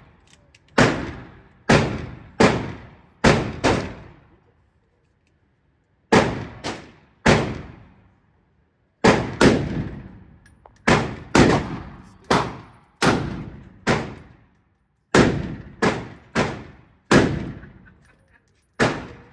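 Gunshots at a shooting range: more than a dozen sharp reports fired in irregular strings with short pauses between, each trailing off in a ringing echo.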